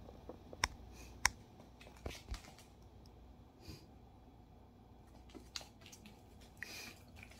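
A small dog playing with a plush carrot toy: scattered sharp clicks, the two loudest about half a second apart near the start, and a brief soft rustle near the end.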